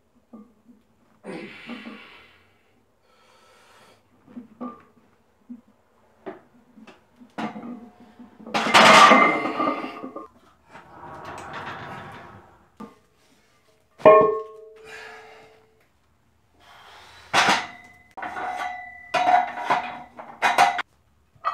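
Barbell and iron weight plates clanking against the steel rack, several knocks ringing briefly. A sharp ringing clank comes about two-thirds of the way in, then a run of quick ringing clanks near the end.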